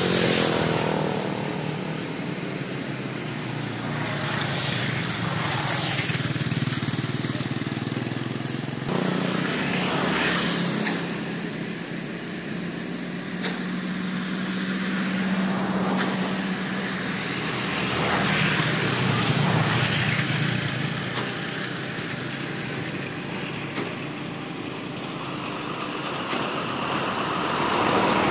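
Road traffic passing close by, cars and motorcycles one after another, the noise swelling and fading with each pass over a steady low engine hum.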